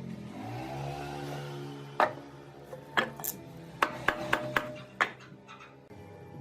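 A steady hum whose pitch bends during the first two seconds, then a run of sharp knocks and clatters, several of them close together between about two and five seconds in.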